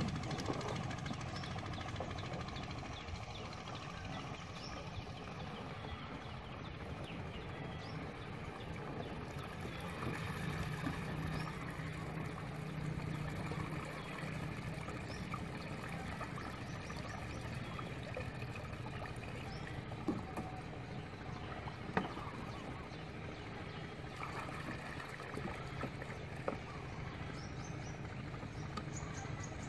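A steady engine drone, with a few short knocks about two-thirds of the way through.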